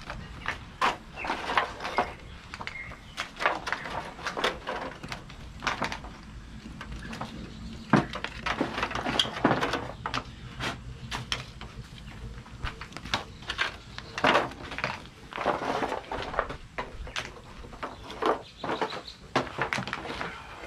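Hot umu rocks clacking and knocking against each other as they are lifted with split-stick tongs and set down on the oven's stone bed: an irregular run of sharp knocks, the sharpest about eight seconds in.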